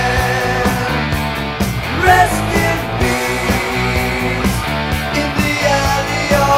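1980s heavy metal (NWOBHM) studio recording: electric guitars, bass and drums playing at full band level, with a note bending upward about two seconds in.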